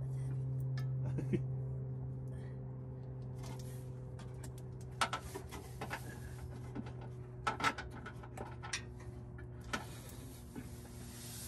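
Scattered sharp metallic clicks and knocks of a steel tow hitch and its hardware being worked into place against a car's underbody, clustered in the second half, over a steady low hum.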